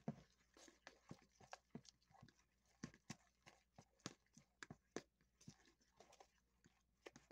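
Metal fork whipping a thick creamy mixture in a plastic mixing bowl: quiet, irregular clicks and scrapes of the tines against the bowl, about two to three a second.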